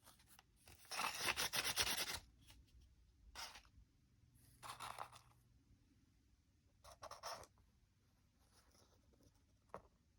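Sheet of paper rustling and crinkling while being handled and folded into an origami bird, in several short bursts, the longest about a second in, with a small tap near the end.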